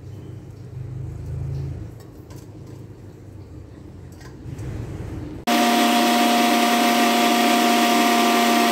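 Kitchen mixer grinder switched on about five and a half seconds in, its motor running at a steady whine while grinding boiled spinach into a paste.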